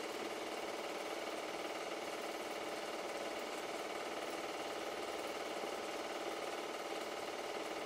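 Super 8 film projector running with a steady, rapid mechanical clatter.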